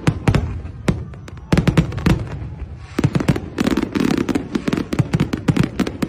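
Fireworks display going off: many sharp bangs and crackling bursts in quick succession, bunched in clusters, with a dense run about a second and a half in and another from about three seconds on.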